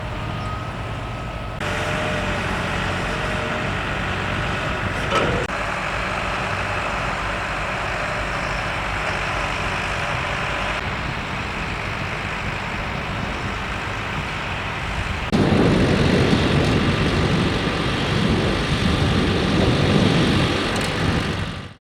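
Tractor engines running under load while ploughing, over several short shots with abrupt changes between them. The sound is loudest in the last six seconds and stops abruptly at the end.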